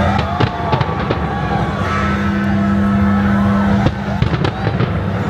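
Fireworks going off in sharp bangs, a cluster in the first second and another about four seconds in, over steady music and crowd voices.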